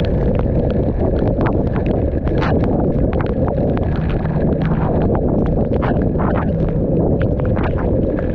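Heavy rain and strong wind: a steady low rumble of wind on the microphone with irregular sharp clicks of raindrops.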